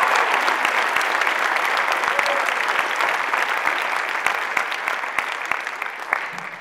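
Audience applauding in an auditorium, the clapping slowly dying down toward the end.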